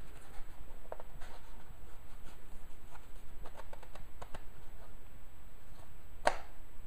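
Small scrapes and clicks of a new wick and its metal wick carrier being handled and turned by hand in an Aladdin Blue Flame 37 kerosene heater. About six seconds in there is a sharper click as the wick's clips catch into place.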